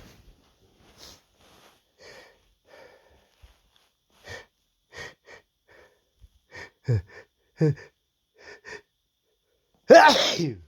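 A man working up to a sneeze: a run of short, soft catching breaths, then two louder gasps about two-thirds of the way through. One loud sneeze follows near the end, falling in pitch as it trails off.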